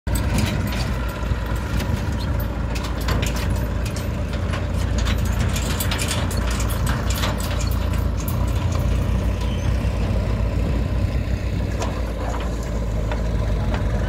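JCB backhoe loader's diesel engine running steadily as it digs, with the tractors' diesel engines idling alongside. Frequent sharp clanks and knocks, thickest in the first half.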